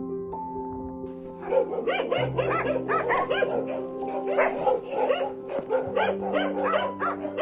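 Background music with held notes, joined about a second and a half in by dogs barking and yipping, many short overlapping barks in quick succession.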